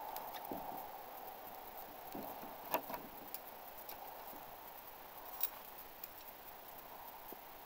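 Throwing knives being pulled out of a wooden plank target and handled, with a few light metallic clicks as they knock together, the sharpest about three seconds in and another about five and a half seconds in.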